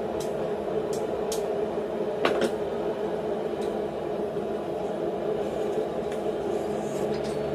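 A few light metallic clicks and taps of tongs and a hot steel bar against a steel bending fork as the bar is bent into a loop. They sit over a steady shop drone.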